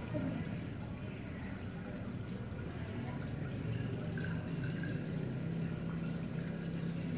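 Water circulating in a saltwater aquarium: a steady pouring trickle through the tank's pipework, with a steady low hum underneath.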